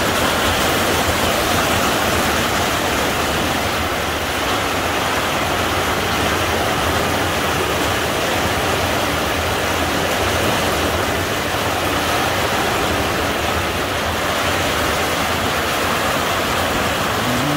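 Heavy rain pouring down steadily, a dense, even hiss with no let-up.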